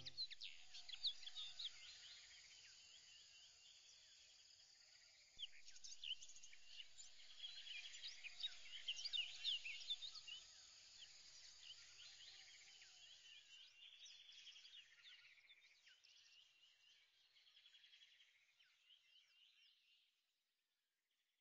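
Faint birdsong: many short chirps and trills from several birds together, louder from about five seconds in, then fading out shortly before the end.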